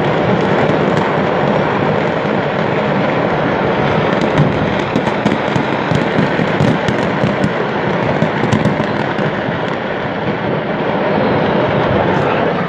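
Masses of fireworks going off as a fireworks market burns: a dense, continuous crackle of pops and bangs, with sharper cracks thickest around the middle.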